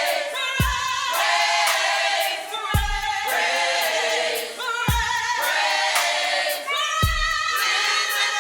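Youth choir singing a gospel song together, with a steady beat under it: a low hit about every two seconds and light ticking above.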